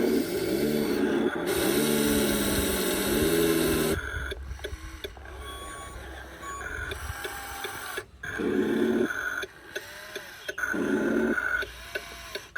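Small electric motors and gearboxes of radio-controlled construction models whining, their pitch rising and falling as they drive and work. About four seconds in, the sound drops abruptly to quieter, separate short whirs with brief gliding tones.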